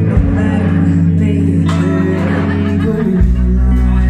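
Live band playing a song: a woman singing over electric guitar, bass, keyboard and drums. The bass shifts to a lower note about three seconds in.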